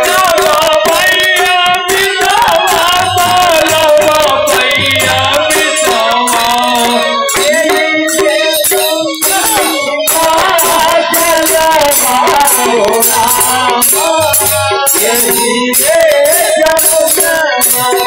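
Holi folk song: men singing to a dholak drum, with a fast jingling percussion and low drum strokes keeping the beat.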